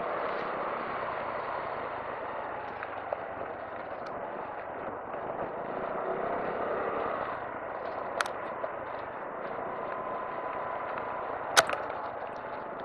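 Honda Navi 110 scooter's small single-cylinder engine running steadily while riding, mixed with wind and road noise. Two sharp clicks come about two-thirds of the way in and near the end, and the second is the louder.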